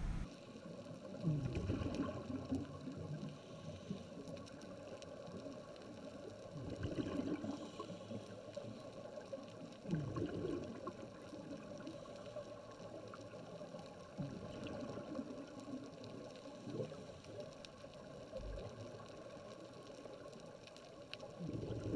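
Underwater recording of scuba divers breathing through their regulators: bubbly gurgling swells of exhaled air, coming in irregular bursts every few seconds over a steady underwater hiss.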